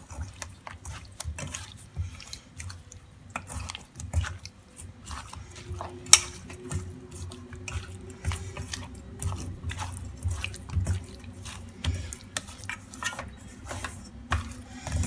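Wet squelching and slapping as bare hands rub turmeric and salt into raw fish in a stainless steel pot, with irregular knocks of the fish and fingers against the pot and one sharp knock about six seconds in.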